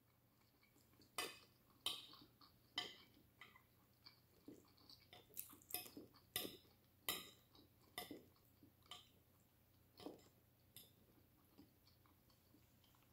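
Close-up eating sounds: chewing with irregular small clicks, one or two a second, from the mouth and from a metal fork tapping and scraping a glass dish.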